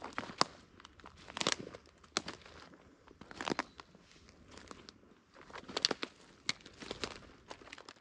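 Footsteps crunching through dry fallen leaves and twigs on a forest floor, one crackling step roughly every second, at an uneven pace.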